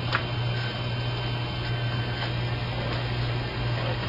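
Steady low electrical hum with a faint background hiss, and a few small handling clicks.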